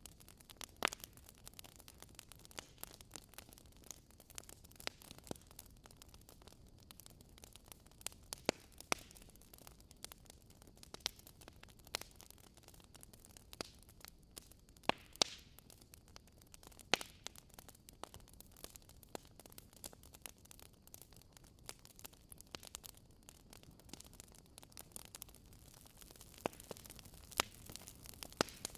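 Wood fire crackling in a fireplace: irregular sharp pops and snaps, a few louder than the rest, over a faint steady hiss.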